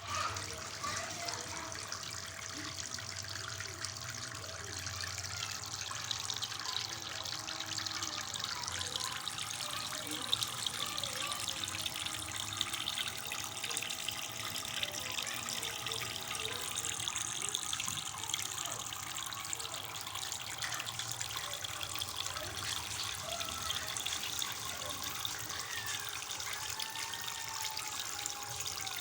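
Water trickling steadily down a small decorative waterfall fountain.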